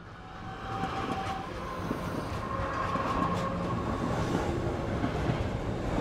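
Train running on rails, a steady rumble that swells up at the start, with faint whining tones over it.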